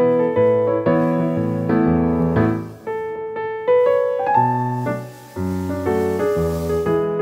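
Background piano music: a slow melody over low bass notes, each note struck and left to fade.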